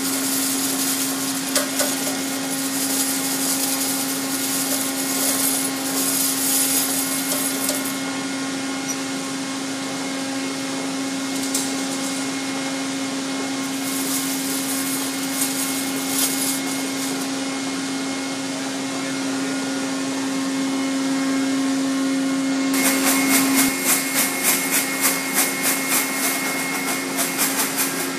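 Steady hum and noise of workshop machinery, with an occasional metallic knock as a perforated steel basket is handled. About 23 seconds in the hum stops and a fast rhythmic rattle of about two beats a second takes over.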